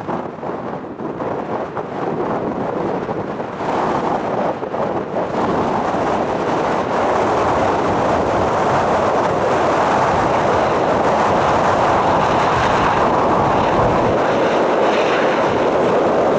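Jet engines of a Boeing 737 running as a broad, steady roar that grows louder about six seconds in and then holds.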